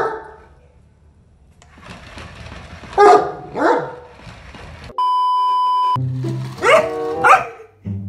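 An Australian kelpie dog barking in sharp single barks, once at the start and twice about three seconds in. About five seconds in, a steady electronic beep sounds for a second. Music then starts, with two more barks over it.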